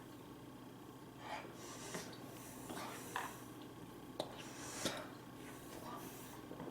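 A person eating, with short sniffs and breaths through the nose and mouth, and two sharp clicks about four and five seconds in.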